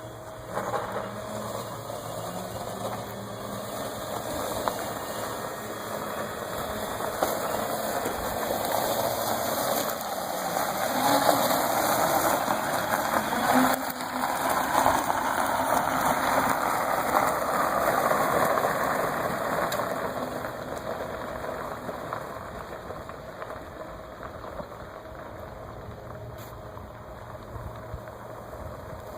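1981 Jet Industries Electrica 007 electric car driving, with motor and tyre noise and no engine note. It grows louder toward the middle and then fades away again.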